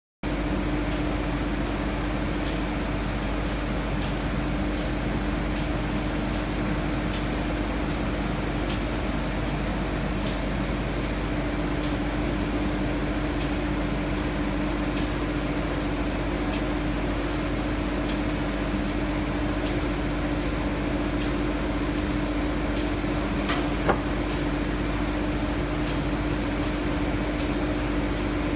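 Steady drone of running workshop machinery, with a constant hum tone and a faint tick repeating about twice a second. A single sharp click stands out near the end.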